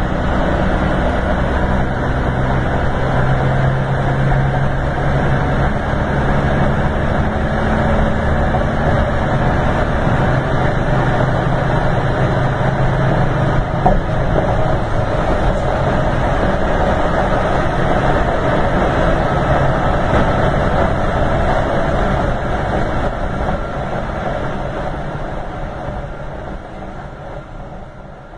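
Scania K410 coach's rear-mounted engine running steadily with a low hum. It fades away over the last several seconds.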